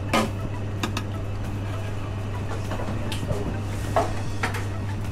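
Metal tongs clinking and scraping against a stainless-steel pan, a handful of separate short clatters, over a steady low hum.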